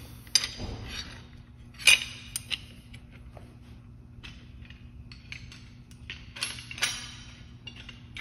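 Steel slide hammer and puller parts clinking and clicking as they are handled and fitted together, with a few sharper metallic clicks, the loudest about two seconds in. A steady low hum runs underneath.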